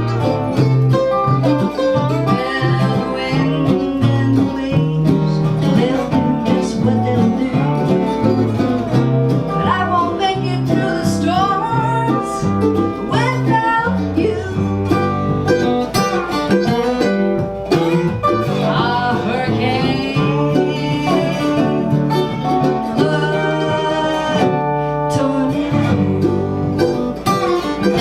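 Live acoustic country-style music: guitar and other plucked strings playing over a stepping low bass line.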